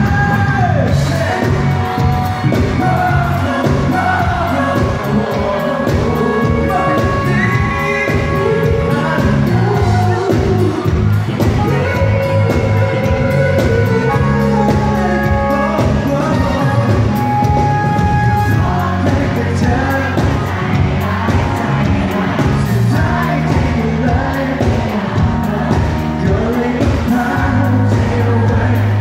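A male singer sings a pop song live with a full band backing him.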